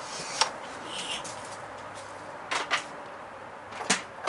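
A few sharp knocks and clinks of hand tools and engine parts being handled during an engine teardown: one about half a second in, a quick pair past the middle, and the loudest near the end.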